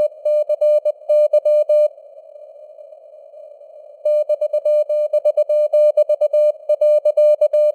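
Morse code (CW) practice: a single-pitch beep keyed in dots and dashes at 20 words per minute over a hiss of simulated radio noise. About two seconds in the keying stops for roughly two seconds, leaving only the hiss, then the code resumes.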